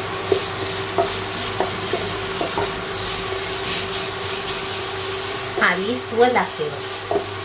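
Wooden spoon stirring and scraping onions and grated coconut in a non-stick pot, with a light sizzle of frying and a few knocks of the spoon against the pan. A steady hum runs underneath.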